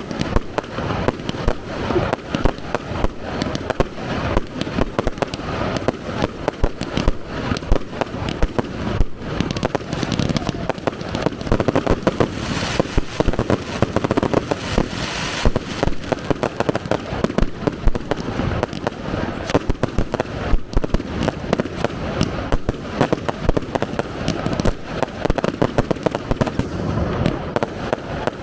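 Professional fireworks display: a rapid, unbroken stream of bangs from shells bursting, several a second, with a thicker spell of crackling about halfway through.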